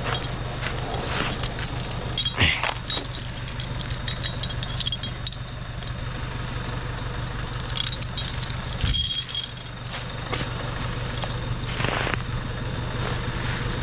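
LKT forestry skidder's diesel engine running steadily, with scattered metallic clanks and rattles, the loudest about two and a half seconds in, near nine seconds and near twelve seconds.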